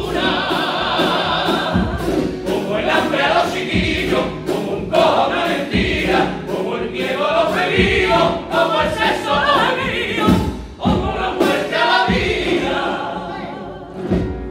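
Men's choir of a Cádiz carnival group singing a pasodoble in unison and harmony over strummed Spanish guitars, with sharp accents every second or two.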